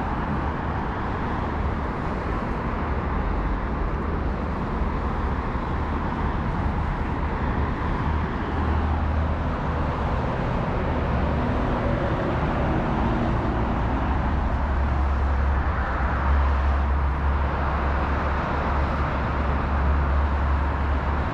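Steady city road traffic from a wide avenue: a continuous rumble of passing cars. The deep rumble grows stronger in the second half.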